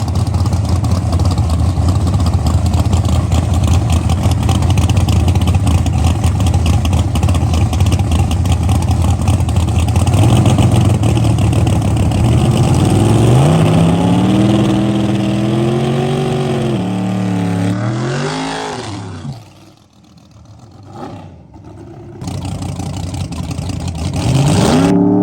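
Nitrous drag car's engine running loud and rough, then revving: the pitch climbs over a few seconds, dips and rises again, then falls away into a short lull before it revs up once more near the end.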